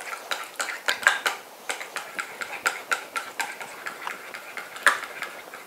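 Spoon stirring a thick yogurt-and-mayonnaise garlic sauce in a small white bowl, clinking against the bowl in quick, irregular taps, about three or four a second.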